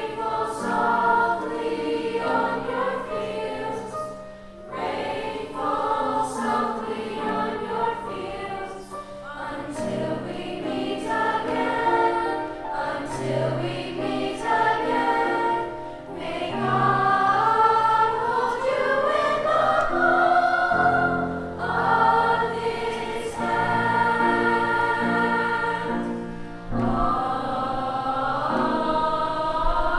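Children's choir singing a song of praise with instrumental accompaniment, in phrases with brief breaths between them.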